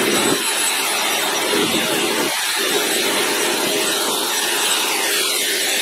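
Wire wheel on a bench grinder running against a steel breaker bar, a steady harsh scratching hiss as it scrubs off surface rust.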